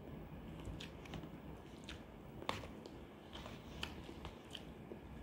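A person chewing a mouthful of instant noodles close to the microphone: a string of soft wet mouth clicks and smacks, the loudest about two and a half seconds in.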